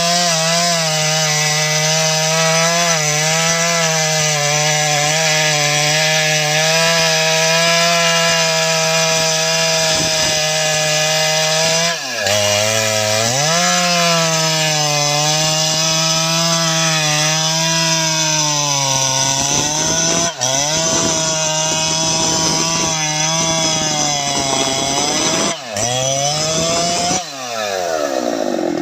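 Jonsered 2095 Turbo 93.6 cc two-stroke chainsaw running at full throttle while cutting through wood, its engine note wavering and sagging under the load of the cut. About twelve seconds in, the revs drop sharply and climb back; there are two more brief dips later, and near the end the throttle is released and the engine falls to idle.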